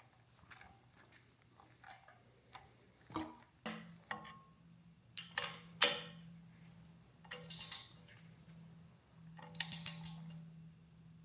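Scattered metallic clinks and clicks of hand tools on steel bolts, with a few short runs of quick clicking, as the intake horn's stainless bolts are tightened down evenly.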